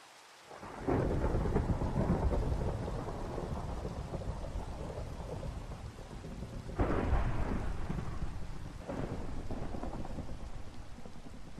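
Thunder rolling over steady rain: a long low rumble begins about a second in, swells again with a louder peak about seven seconds in and a smaller one near nine seconds, then slowly dies away.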